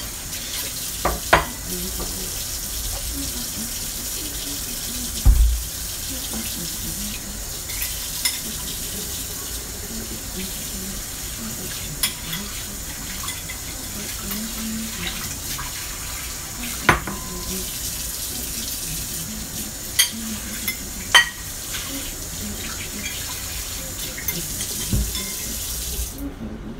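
Kitchen tap running steadily into a sink, with scattered clinks and knocks of dishes and pans, until the tap is shut off shortly before the end.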